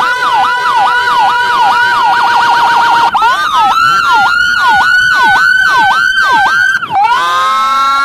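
Whelen 295SDA1 dual-tone 200-watt siren driving an SA314 speaker, sounding two tones at once: a near-steady high tone over a fast up-and-down sweep repeating a few times a second. The sweep speeds up briefly about two seconds in and settles again after three seconds. About seven seconds in the pattern cuts to a single rising wail.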